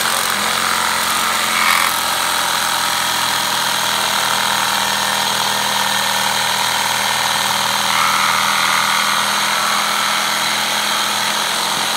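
Milwaukee M12 Fuel cordless reciprocating saw (Sawzall) cutting through a window blind wrapped in painter's tape. It starts abruptly, then runs loud and steady.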